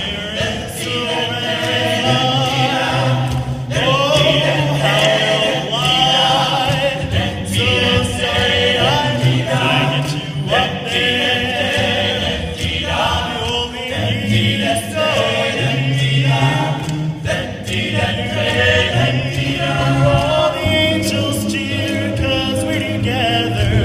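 A cappella vocal group singing in harmony, with a low sung bass line under several higher voices.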